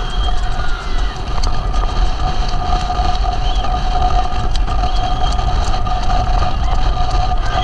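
Wind rushing over the microphone of a rider-mounted camera on a galloping racehorse, with scattered clicks and a steady high tone.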